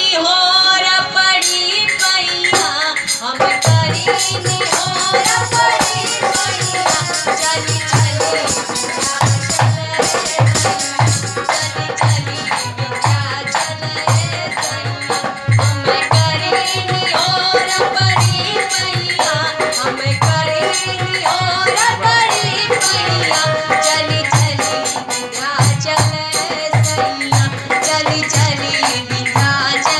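A woman singing a Bhojpuri song into a handheld microphone, with a drum beat that comes in about three and a half seconds in.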